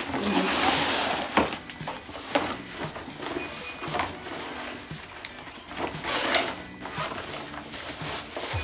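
Rustling and light knocks of a ring light's packaging and parts being handled, with a longer rustle near the start and another about six seconds in, and scattered short clicks between.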